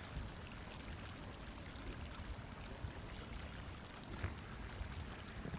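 Geyser vent steadily splashing and hissing, an even rush of water and steam noise.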